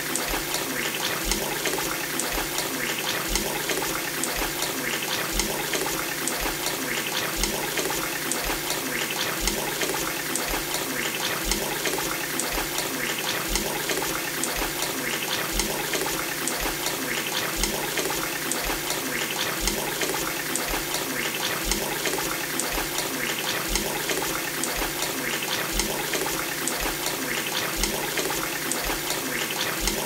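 Tap water running steadily from a faucet into a full glass bowl, a continuous splashing pour, with a regular low pulse underneath.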